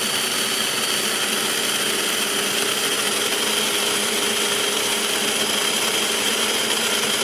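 Electric blender running steadily, grinding soaked chana dal with water into a paste.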